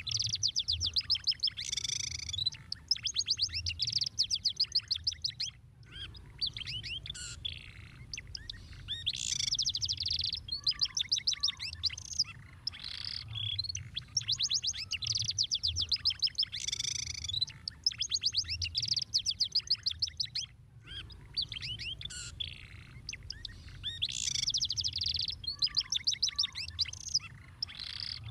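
Domestic canary singing a long song of fast, high trills and rolls, the phrases repeating with two brief breaks.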